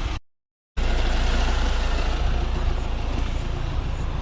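Steady low rumble of a vehicle's engine and road noise while driving, after a brief dead-silent gap at an edit near the start.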